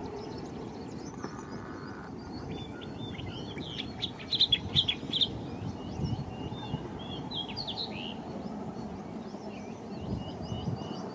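Small birds chirping in quick, high notes throughout, loudest in a cluster about four to five seconds in, over the low steady rumble of a distant train.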